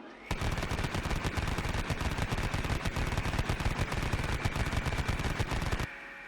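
Machine gun firing one long continuous burst of rapid automatic fire, lasting about five and a half seconds and stopping abruptly near the end, followed by a fading ring.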